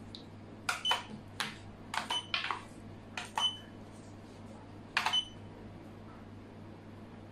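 Xiangqi pieces clacked down onto the board and against each other as moves and captures are made: a dozen or so sharp clicks in quick clusters, a few of them with a short ringing tone.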